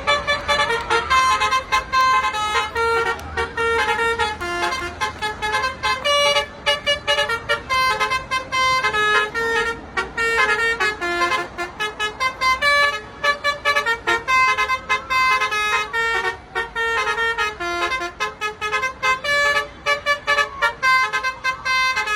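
Telolet basuri multi-tone bus horn playing a fast melody, a rapid run of short, loud notes that jump in pitch.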